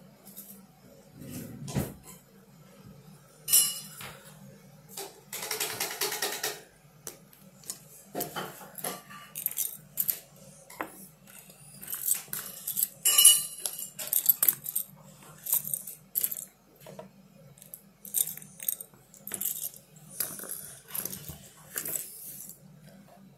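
Plastic LEGO bricks clicking and clattering as pieces are handled and pressed together: a string of sharp clicks, with a few longer rattles of loose pieces being picked through.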